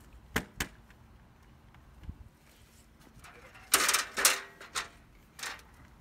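Plastic window trim being pressed by hand and snapped onto the window frame: two sharp clicks at the start, then a quick run of clicks and knocks about four seconds in, and a few more clicks after.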